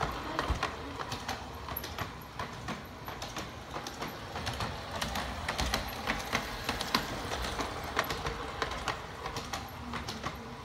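LGB large-scale model train running on its track, its wheels clicking and rattling over the rails in a steady run of irregular clicks.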